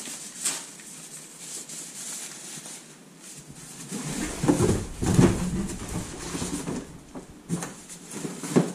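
Plastic and foam packaging rustling and crinkling as stroller parts are unwrapped and pulled out of a cardboard box, with scattered clicks and knocks. A louder stretch of bumping and rubbing comes about halfway through.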